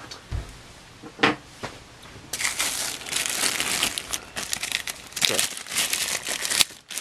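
Clear plastic bag crinkling as it is handled and opened to get a toy car out: a short rustle about a second in, then steady crinkling from about two seconds in until just before the end.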